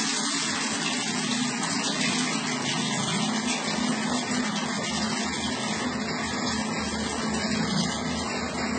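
Water running steadily into a bathroom sink and splashing over a kitten's wet fur as it is rinsed.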